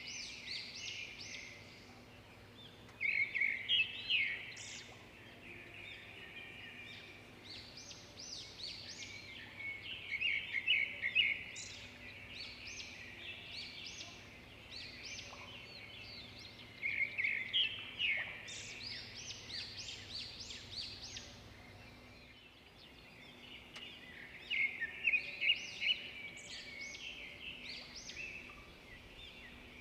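Songbirds singing in recurring bouts of rapid, high-pitched chirping notes, with quieter scattered calls between the bouts.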